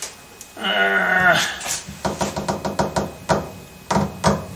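A man's drawn-out hesitating 'um', then a quick run of light clicks and a few louder knocks from the metal carriage and handwheel of a mini lathe being worked by hand, with the motor off.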